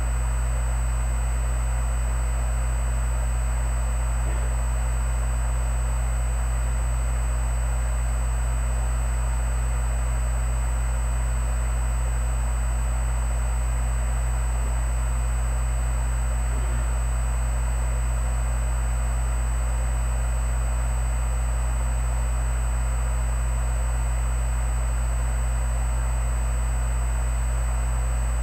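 Steady low hum with hiss and a thin high whine, unchanging throughout. No distinct sounds from the sit-ups stand out above it.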